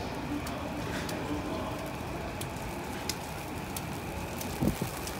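Steady outdoor city ambience in falling snow: an even background hiss and hum with faint scattered ticks, and a couple of soft low thumps near the end.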